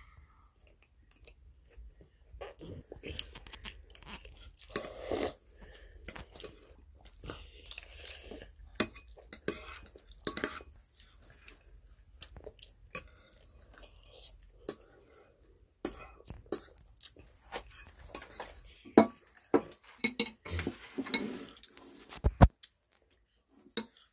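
Close-up eating sounds: a metal spoon clinking and scraping irregularly against a bowl of mapo tofu, mixed with wet chewing.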